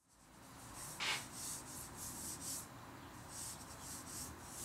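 Drawing tool scratching on paper in short repeated strokes, several a second, with one louder scrape about a second in.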